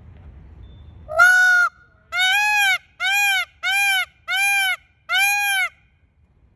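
A bird honking six times in quick succession, each honk loud and about half a second long.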